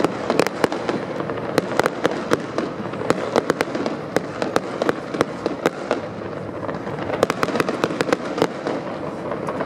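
Aerial fireworks display going off: many sharp bangs and pops, several a second in an irregular run, over a continuous background din.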